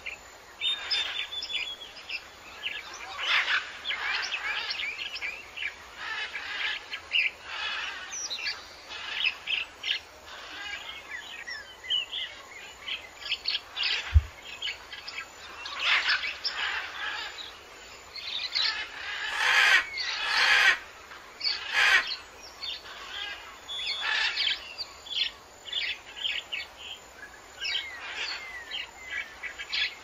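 Many birds chirping and calling in a busy chorus of short, high notes. There is a single sharp knock about fourteen seconds in, and a few harsh, noisy bursts around twenty seconds in.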